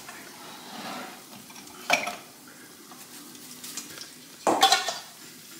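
Oil sizzling steadily as a dough empanada fries in a pan. Over it come brief handling knocks, one about two seconds in and a louder cluster near the end.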